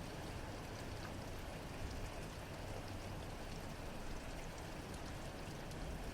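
Steady rain falling, with fine drop ticks over an even hiss and a low steady rumble underneath.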